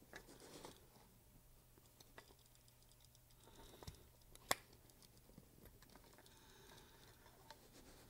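Near silence with faint handling noise from the shift-to-park switch being worked out of its plastic shifter housing: light scratching and small clicks, and one sharp click about four and a half seconds in.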